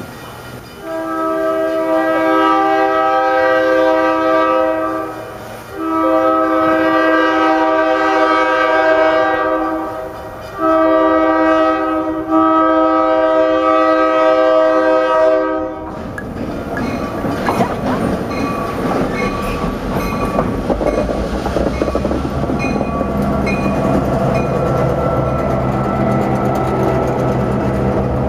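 Diesel locomotive's multi-chime air horn blowing two long blasts, a short one and a long one, the standard signal for a road crossing. Then the locomotive's diesel engine runs past, and passenger car wheels click over the rail joints.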